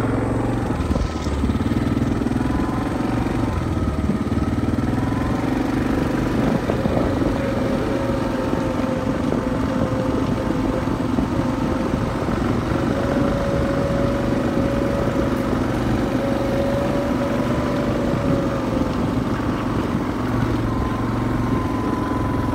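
Four-wheeler (ATV) engine running at a steady pace while riding over rough grass, its pitch drifting only slightly, with rumble and jostling from the ride.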